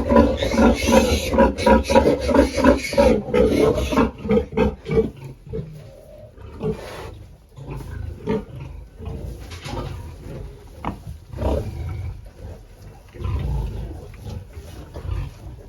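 Pigs grunting: a quick, even run of loud grunts, about two to three a second, for the first few seconds, then quieter scattered grunts and knocks.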